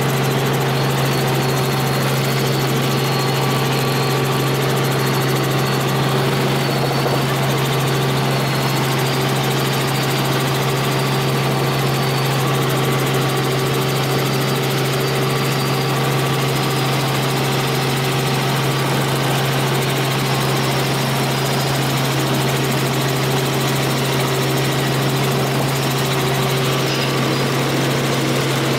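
Helicopter in steady flight heard from inside the cabin: the engine and rotors make an unbroken drone with a strong low hum.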